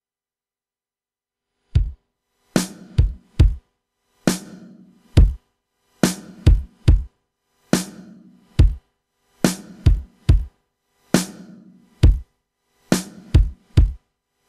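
Background music: a bare drum-machine beat of kick and snare hits, starting about two seconds in.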